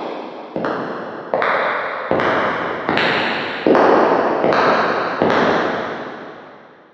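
Footsteps walking at an even pace, about one step every three-quarters of a second, each with a long echo as if in a hard, reverberant space. The steps grow louder toward the middle and stop after the last one about five seconds in, whose echo fades away.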